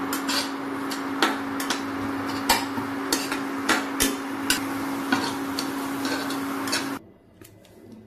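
A metal spatula clacks and scrapes against a non-stick kadai while stir-frying a filling, about a dozen sharp knocks, over the steady hum and hiss of an induction cooktop. The hum and hiss stop abruptly about seven seconds in, leaving only a faint room sound.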